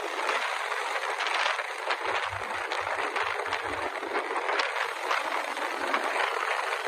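Steady road and wind noise from cars cruising side by side, heard from the moving camera car, with a few short low rumbles about two to four seconds in.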